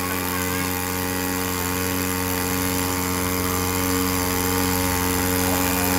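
Floating pontoon water pump running steadily under load, a constant engine drone with the hiss of the high-pressure jet from its hose.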